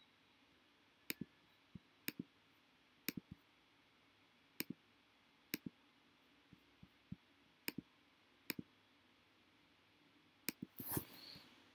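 Faint computer pointer clicks, each a quick press-and-release double click, roughly once a second. Near the end comes a louder, longer scuffing burst.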